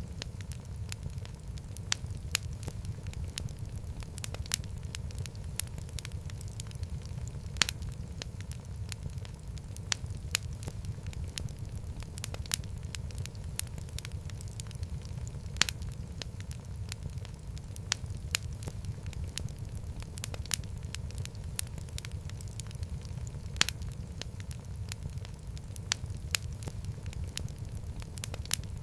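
Wood fire crackling in a fireplace: a steady low rumble of the flames with frequent small sharp crackles and a louder pop every several seconds.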